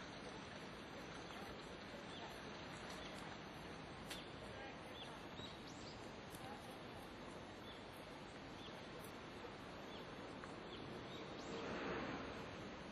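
Faint outdoor ambience: a steady hiss with small birds chirping every second or so. Near the end the noise swells briefly.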